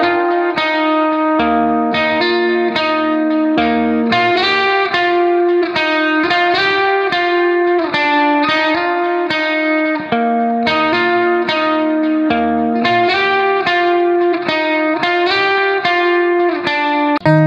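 Background music: a melody of plucked string notes in a steady run.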